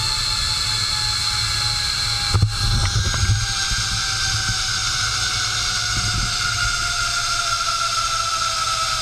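Zip-line trolley pulleys running along the steel cable with a steady multi-tone whine that slowly drifts in pitch, over wind rumble on the microphone. There is a short knock about two and a half seconds in.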